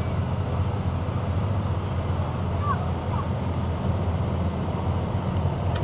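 Ford Super Duty pickup's engine running hard under load as it drags a weight-transfer pulling sled, a steady low drone that holds without letting up.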